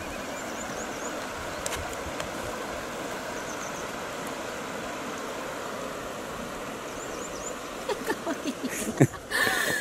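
Steady rush of flowing river water, with a few faint high chirps over it. Near the end come a few sharp knocks and a brief louder rustle.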